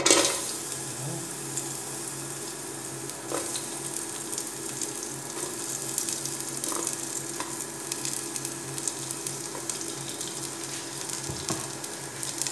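Sliced garlic hitting hot cooking oil in a metal pot, a sudden loud sizzle as it goes in, then frying with a steady hiss and light crackles as it is sautéed to brown.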